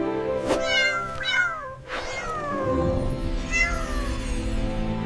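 Cat meowing several times, each meow falling in pitch, over background music with steady held chords.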